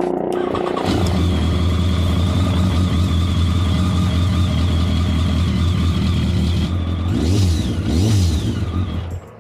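Motorcycle engine started up and running at a steady fast idle, with two quick throttle blips near the end, then cut off abruptly; a test run after a fuel-screen replacement.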